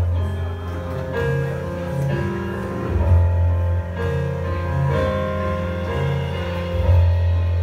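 Live jazz combo playing: keyboard chords over a deep, prominent electric bass line.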